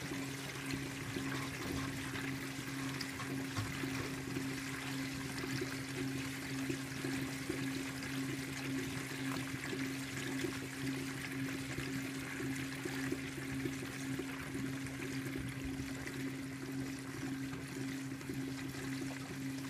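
2012 LG top-load washer filling: water pouring into the basket as the basket turns the load, over a steady low motor hum.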